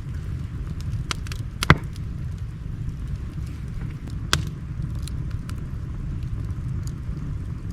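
Wood fire crackling, with scattered sharp pops over the steady low rush of a river. The loudest pop comes just under two seconds in, and another a little after four seconds.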